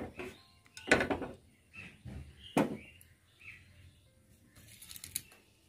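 A plastic spatula knocking and scraping against a nonstick kadai while whole cloves and cardamoms fry in ghee, a few separate strokes with quiet between them.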